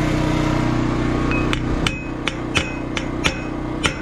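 A hammer striking steel fence pipe about eight times in quick, uneven succession, starting a little over a second in; each blow gives a short metallic ring. A steady engine drone runs underneath.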